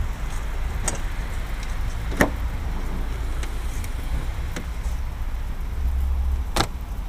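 A handheld camera being handled and repositioned inside a car: a low steady rumble with four short sharp clicks and knocks, the loudest about two seconds in and near the end.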